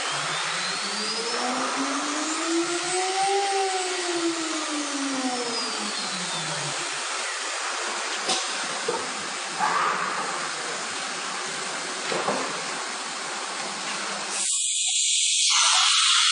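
CNC router spindle whining up in pitch for a few seconds and winding back down, over steady machine noise. Near the end a loud hiss starts abruptly.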